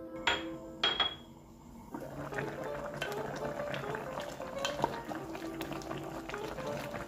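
Kimchi stew bubbling at a boil in a pot. From about two seconds in, a spatula stirs it, with small clicks and knocks against the pot.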